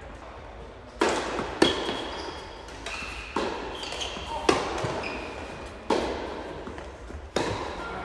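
Tennis rally: a ball struck by rackets and bouncing on the court, about six sharp pops one to two seconds apart, with short high squeaks between some of the hits.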